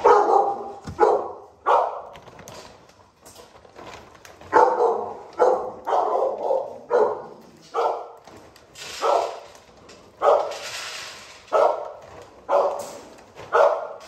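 Dogs in a kennel barking, about fifteen short barks at irregular intervals.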